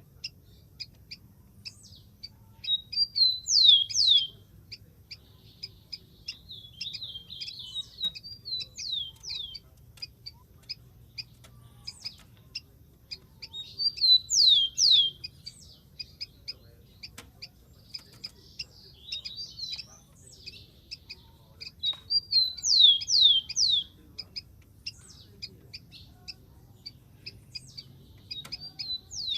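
Rufous-collared sparrow singing: a phrase of quick, high downslurred whistles, repeated three times roughly every nine seconds, with short high ticks in between.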